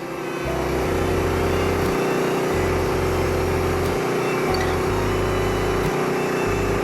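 Wood-Mizer LT15START portable band sawmill running steadily, its engine and band blade taking a thin trimming cut along a beam.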